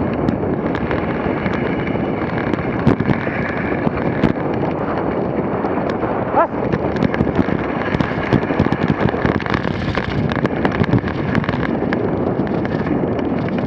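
Dog sled running fast over a packed snow trail: a steady scraping rumble from the runners, with frequent sharp clicks and knocks as the sled jolts, and wind on the microphone. A brief rising squeak about six and a half seconds in.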